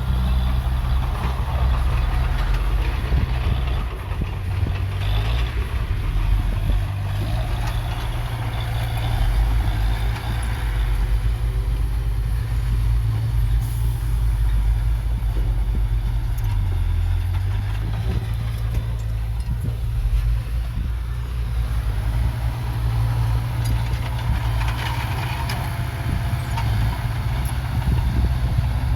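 Heavy earthmoving machine's diesel engine running continuously, a deep drone whose pitch shifts a few times as it works.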